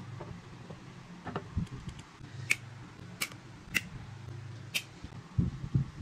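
Small hand tools, a wire cutter and pliers, snipping and gripping a tiny piece of thin sheet metal: four sharp, slightly ringing metallic clicks in the second half, over a low steady hum.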